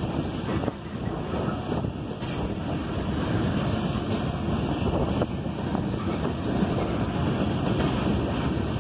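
Freight train tank cars rolling past: a steady rumble of steel wheels on rail, with wind buffeting the microphone.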